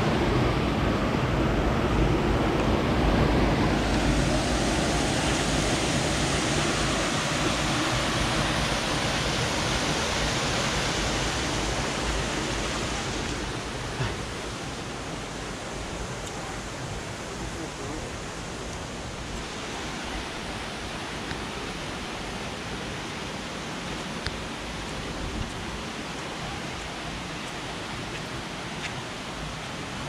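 Steady rushing of a creek's cascades, with no distinct events. It is louder through the first dozen or so seconds, then settles noticeably quieter from about halfway.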